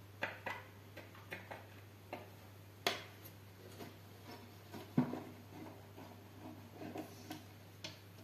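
Scattered light clicks and knocks of hands handling a finned metal LED floodlight and its power cable on a table, the two loudest knocks about three and five seconds in. A steady low hum runs underneath.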